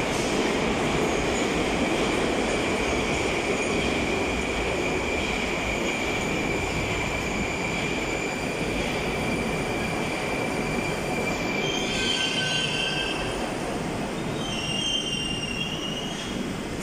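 Moscow Metro 81-765/766/767 'Moskva' train running into the station and braking to a stop: a continuous wheel rumble with a steady high whine that drops slightly in pitch as the train slows. Short high squeals come twice near the end, as the train comes to a halt.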